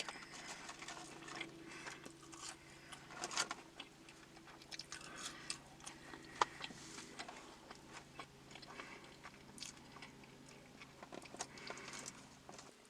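Faint close-up chewing and biting of fast food, with scattered small clicks and crunches.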